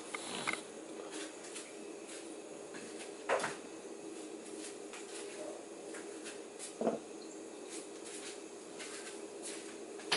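Kitchen background: a steady hum with faint scattered ticks, broken by three short knocks, one just after the start, one about three seconds in and one about seven seconds in.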